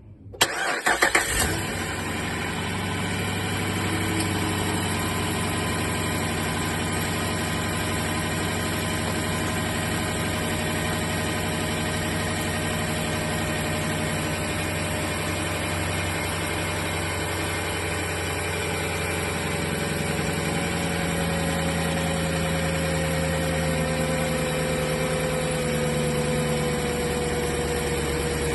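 A car engine cranks and catches within the first second or so, then idles steadily, with a whine that slowly drops in pitch as the idle settles.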